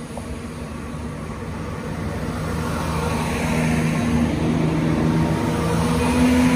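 Chiltern Railways Class 168 Turbostar-type diesel multiple unit running past close by along the platform. Its underfloor diesel engines drone over the wheel and rail noise, growing steadily louder as the coaches draw level, and a higher engine tone rises slightly near the end.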